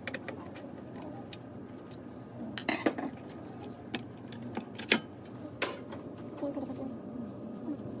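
Sharp metallic clicks and clinks of a screwdriver and hands on the sheet-metal shield of a Dell Inspiron 24 5000 all-in-one PC, with a cluster of louder clanks about three seconds in and another about five seconds in.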